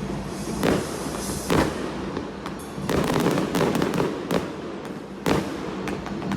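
Aerial fireworks shells bursting: a series of sharp bangs roughly a second apart, with crackling in between.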